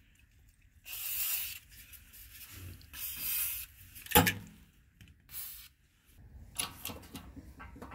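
Three short hissing sprays from an aerosol can of silicone spray lubricant, with a single sharp knock between the second and third, then light clicking near the end.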